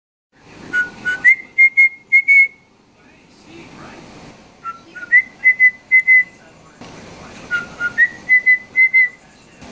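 A short whistled tune, played three times: two lower notes, a step up, then a quick run of four or five notes on one higher pitch.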